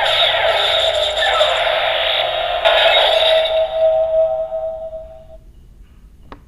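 K-Touch 21 transformation toy playing an electronic sound effect, a steady held tone with a shimmer over it, which fades out after about five seconds. A faint click follows near the end as a finger presses the device.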